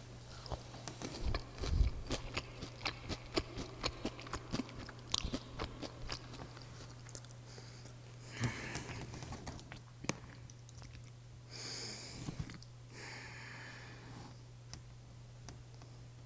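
Close-miked chewing of crispy breaded pork cutlet: crunchy bites and many sharp chewing clicks for the first half. Later there are a few soft hissing mouth sounds.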